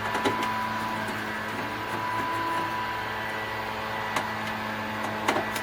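A few light clicks and knocks from tools and parts handled while an air conditioner is being unscrewed and taken apart, over a steady mechanical hum.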